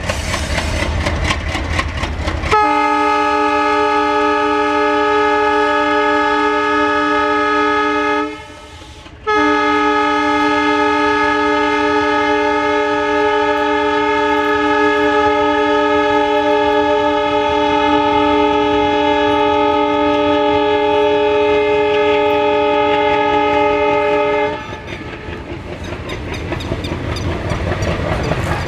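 Horn of a WDM-2A diesel locomotive: a long steady blast of a chord, starting about two and a half seconds in, breaking off for about a second, then held again for some fifteen seconds. Around the horn the locomotive's diesel engine runs under load as the train pulls away, with wheels clacking over the rail joints near the end.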